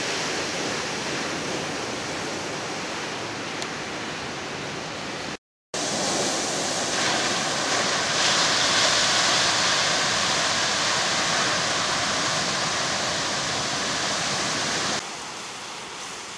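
Ocean surf breaking on a rocky shore, a steady rush of water. About five seconds in the sound drops out briefly, then the surf returns louder, with a heavier wash from about eight seconds, and falls quieter near the end.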